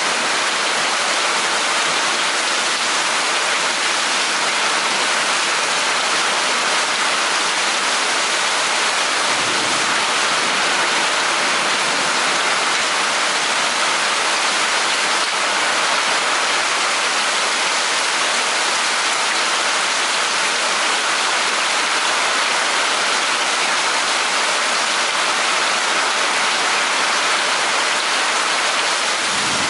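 Heavy rain falling steadily in a thunderstorm, a constant even hiss of downpour.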